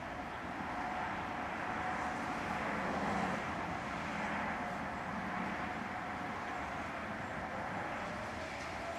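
Road traffic going by, loudest about three seconds in, over the faint steady tone of distant Federal Signal 2001 tornado sirens fading in and out.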